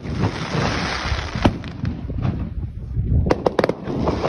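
Aerial firework shells bursting overhead. A dense crackling hiss fills the first couple of seconds, with a sharp bang about a second and a half in and a quick run of three or four bangs past three seconds.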